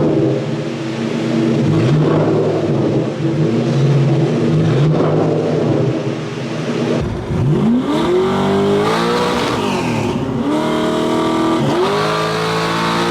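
Ford Mustang Mach 1's 4.6-litre DOHC V8 running with its exhaust removed. It runs fairly steadily at first, then revs up several times in the second half, each time rising in pitch and levelling off, as when the car accelerates.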